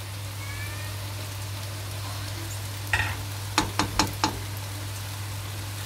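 Rice cooking in sugar syrup in a pot on the stove, with a faint steady sizzle. About three seconds in comes a brief scrape, then four quick taps of a utensil.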